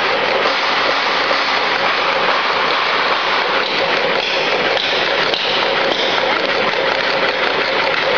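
Electric vegetable slicing machine running: a loud, steady mechanical noise with a faint hum underneath.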